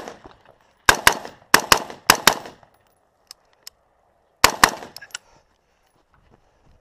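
Rifle fired rapidly in quick pairs: three pairs of sharp shots in the first two and a half seconds, a short pause, then another pair, each crack trailing a brief echo.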